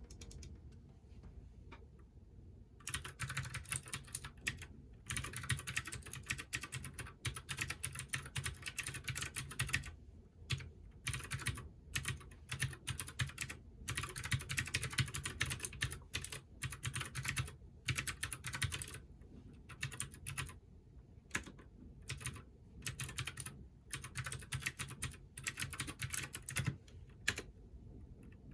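Typing on a Keychron K6 mechanical keyboard with clicky Gateron Blue switches. It starts about three seconds in and comes in fast runs of keystrokes broken by short pauses.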